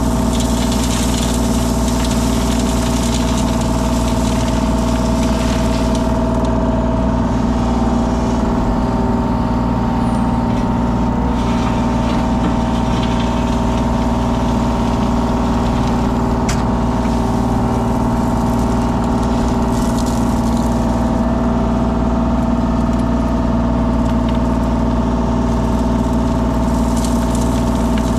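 Engine of a compact construction machine running steadily at constant speed, with no revving.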